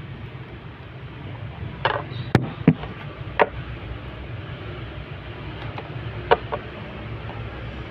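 A few short clicks and knocks of tableware, about five in all and scattered, as a meal is begun, over a steady low hum.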